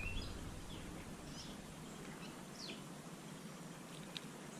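Faint outdoor ambience: a few short, scattered bird chirps over a low, steady background hiss.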